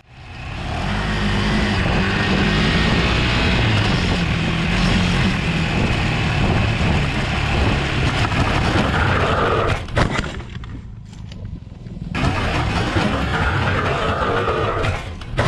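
KTM 390 Adventure's single-cylinder engine revving hard on a loose dirt trail, with wind rushing over the bike-mounted microphone. About ten seconds in there is a sharp click and the sound drops away for two seconds, then it picks up again, and a sharp knock comes near the end as the bike slides down into the dirt.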